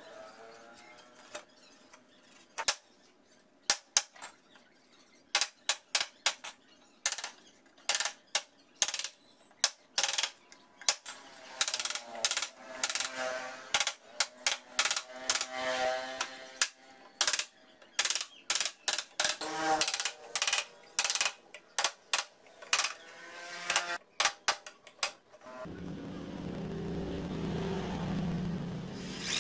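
Wooden mallet striking a steel chisel in irregular blows, chopping slots into the edge of a wooden louvred door. Near the end an electric hand drill starts and runs steadily.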